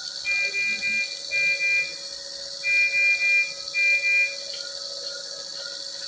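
Electronic alarm tones: two long, steady high beeps near the start and two more about halfway through. Shorter, fainter beeps follow about twice a second in the second half, over a steady hiss.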